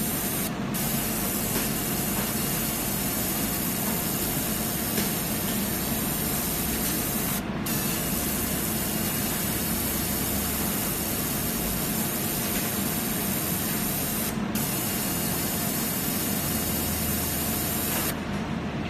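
Laser engraving machine running while it etches a wine glass turned in a rotary chuck: a steady hiss over a low hum. The high part of the hiss cuts out briefly about every seven seconds.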